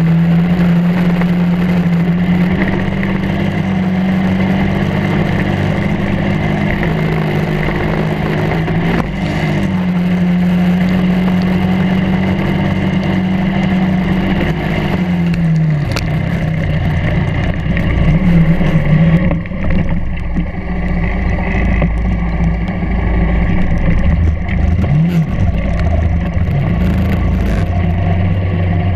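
Kart cross buggy's engine heard on board, running at steady high revs. About halfway through it eases off, and the revs then drop and climb again several times.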